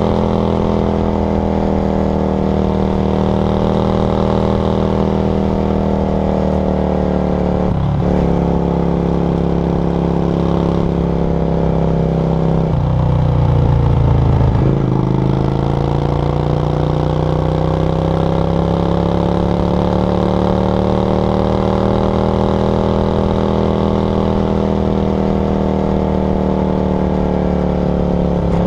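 Yamaha XV535 Virago's air-cooled V-twin running through a SilverTail K02 aftermarket exhaust while riding. The note holds fairly steady with a short break about eight seconds in, drops in pitch around the middle as the revs fall, and is loudest there, then rises again as the bike pulls away and settles.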